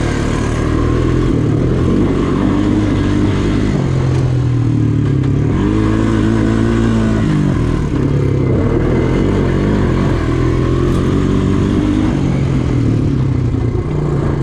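ATV engine running under changing throttle as it is ridden on a dirt trail, its pitch rising and falling several times as it speeds up and slows for turns.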